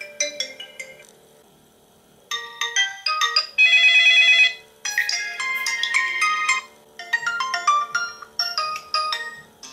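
Lenovo Vibe P1 smartphone's bottom loudspeakers playing preset ringtones one after another as each is previewed: short electronic note melodies, with a short pause about a second in and a loud trilling ring about four seconds in.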